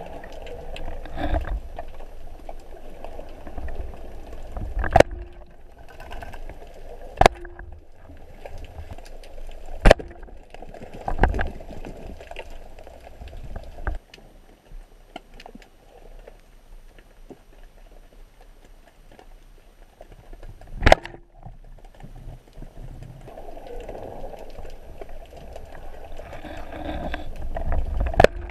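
Water gurgling and sloshing, heard through a waterproof camera housing, with several sharp knocks or clicks.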